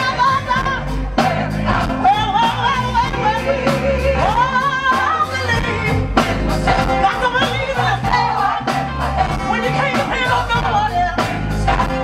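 Live gospel music: a female lead singer's voice sliding through runs over a backing choir and a full band, with a steady drum beat and bass.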